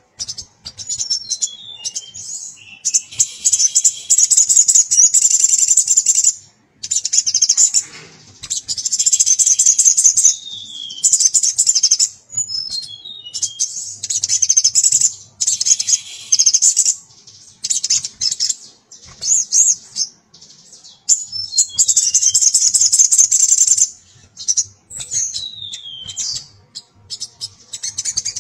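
Caged male sogon (sogok ontong), a small sunbird, singing hard in the way keepers call gacor, to call a female: long runs of rapid, high chattering twitter, broken by short falling whistled notes and brief pauses between phrases.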